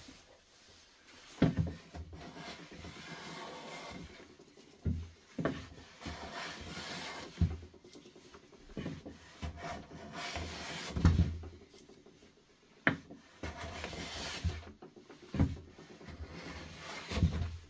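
Wooden hand plane (kanna) taking repeated strokes across a softwood board, the blade shaving the wood with a rasping hiss, broken by sharp knocks of the plane body against the board between strokes.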